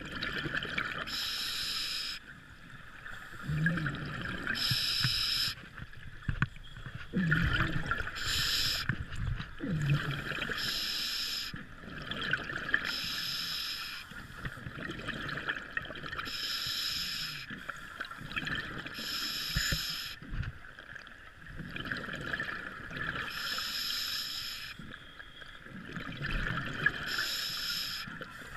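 A diver's scuba regulator heard underwater: a sharp hiss on each inhale, about every two to three seconds, alternating with bubbling exhalations.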